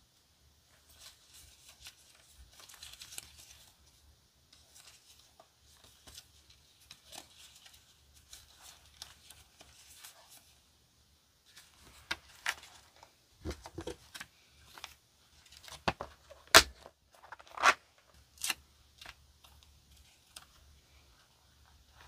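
Die-cut paper stickers rustling softly as they are leafed through by hand. In the second half comes a run of louder, sharp paper crackles and tears, the sharpest about two-thirds of the way in.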